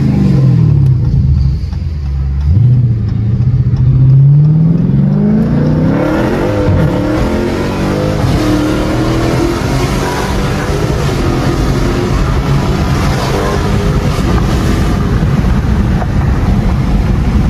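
Dodge Challenger Scat Pack's 392 Hemi V8, heard from inside the cabin, winding down as the car slows, then at hard throttle about two and a half seconds in, its revs climbing steeply. From about six seconds in it stays loud at high speed, with heavy wind and road noise.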